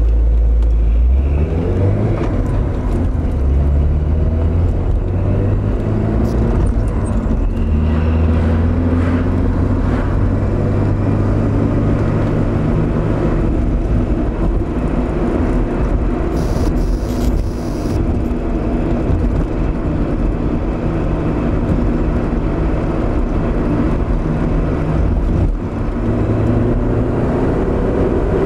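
Porsche engine heard from inside the cabin, pulling hard through the gears, its pitch climbing and dropping back several times at each shift, over steady road and tyre noise.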